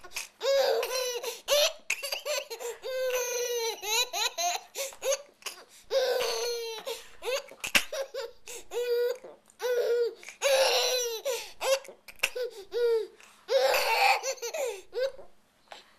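A young child laughing in a string of short, high-pitched bursts, with one sharp click about halfway through.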